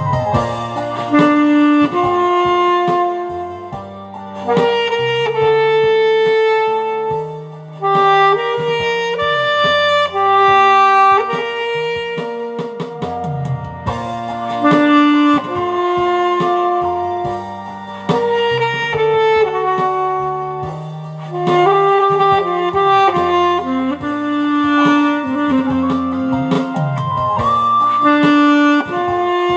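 Alto saxophone playing a slow, sustained melody of held notes over a backing track with a bass line.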